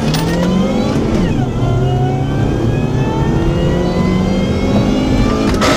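Supercharged four-cylinder engine of a Chevy Cobalt SS pulling hard under acceleration, heard from inside the cabin. Its note dips briefly about a second in, like a gear change, then climbs steadily as the revs rise.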